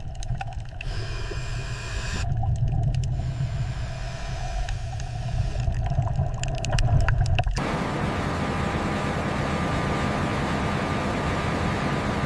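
A deep low rumble with scattered clicks and creaks, which cuts off suddenly about seven and a half seconds in and gives way to a steady hiss with a faint hum.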